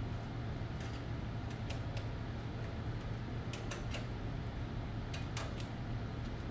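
Scattered light clicks and taps of monitor cable plugs being handled and pushed into their ports, over a steady low hum.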